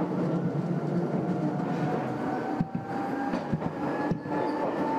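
Nagoya Railway Mikawa Line electric train running, heard from on board: the traction motor whine slowly rises in pitch as the train gathers speed, over a steady rumble of wheels on rail with a few knocks from the track.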